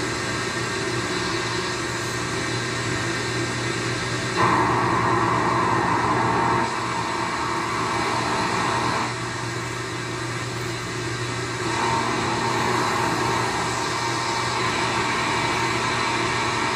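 One-transistor regenerative radio receiver hissing from its speaker as its dial is tuned, with a steady hum underneath. A louder signal comes in about four seconds in, drops out near nine seconds and comes back near twelve seconds.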